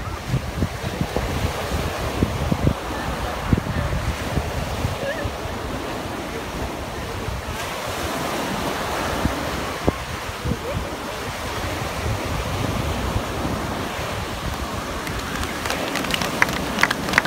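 Ocean surf breaking and washing, loud, with wind buffeting the microphone. A patter of sharp clicks starts near the end.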